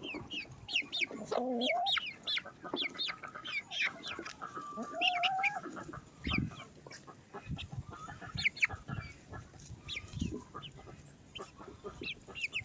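A flock of chickens clucking and chirping with many short calls, and a couple of longer drawn-out calls, one near the start and one about five seconds in.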